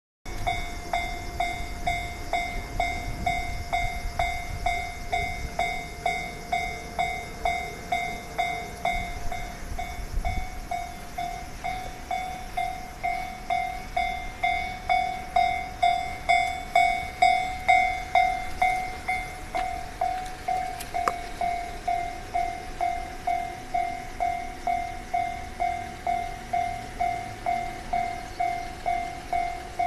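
Japanese level-crossing alarm bell ringing steadily, about one and a half strokes a second. For the first ten seconds or so a train rumbles past under it, with wheels clacking over the rail joints.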